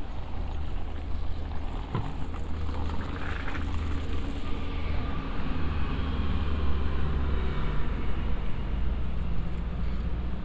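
Road traffic close by: a motor vehicle's engine running with a steady low hum, and a single sharp click about two seconds in.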